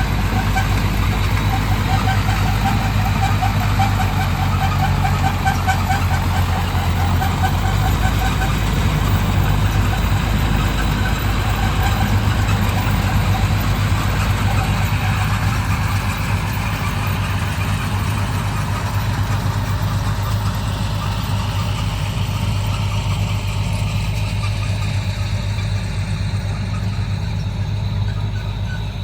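Tractor-driven Nippy45 mini combine harvester running steadily, with a deep engine hum and a mechanical rattle over it; it drops slightly in loudness about halfway through.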